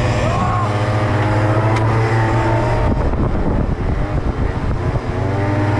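Small scooter-type moped engine running hard as it is ridden, its pitch rising and falling with the throttle. The sound changes briefly about three seconds in.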